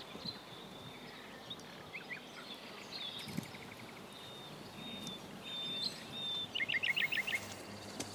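Small birds singing in woodland: scattered short chirps, then a fast run of about eight repeated notes a little past two thirds of the way through, over a steady outdoor background.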